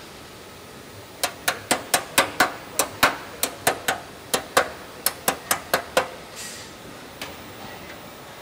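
Hand hammer striking the edge of an aluminium Land Rover Defender body panel held on a jig. It gives about eighteen sharp metallic blows at roughly four a second, starting about a second in and stopping about six seconds in.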